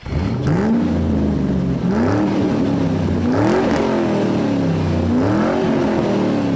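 Car engine being revved over and over, the pitch climbing and falling back about every second and a half.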